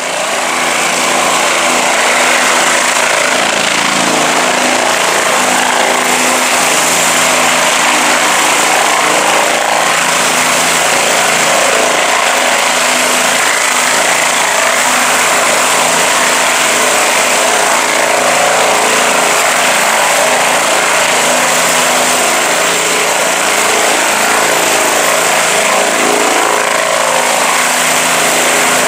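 Bell 407 helicopter's single turboshaft engine and four-blade main rotor running loud and steady as it hovers low and sets down on its skids.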